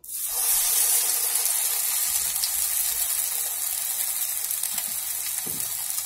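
Hot oil sizzling as a vada of urad dal batter and amaranth leaves is slid in to deep-fry. The sizzle starts abruptly, then runs on steadily, easing a little.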